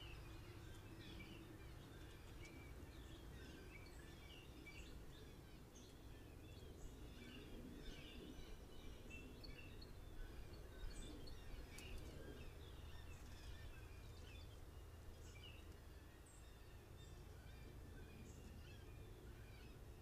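Faint outdoor birdsong: many short chirps and calls from several birds overlap throughout, over a steady low background noise, with a couple of sharp ticks about halfway through.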